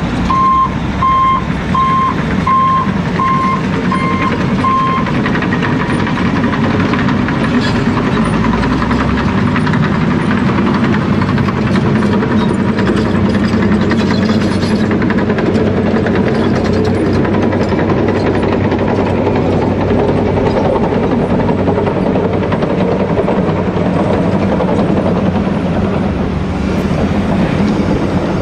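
Heavy diesel engines of a Bell B40D articulated dump truck and a Caterpillar 345C L tracked excavator running steadily. A reversing alarm beeps about twice a second and stops about five seconds in.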